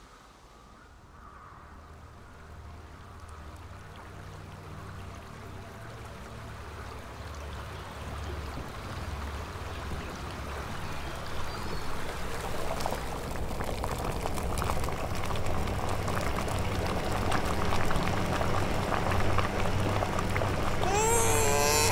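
Glass electric kettle heating water and coming to the boil: a bubbling hiss that grows steadily louder and thickens into dense crackling, over a low hum.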